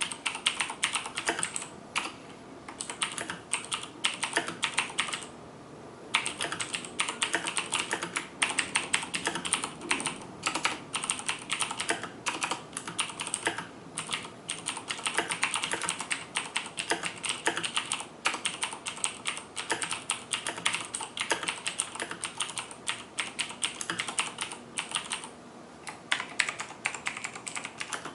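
Fast typing on a Razer BlackWidow 2013 mechanical keyboard with clicky Cherry MX Blue switches: a dense stream of sharp key clicks, broken by a few short pauses.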